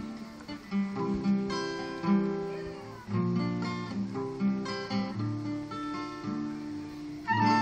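Acoustic guitar playing an instrumental introduction, notes and chords picked one after another; a flute comes in near the end.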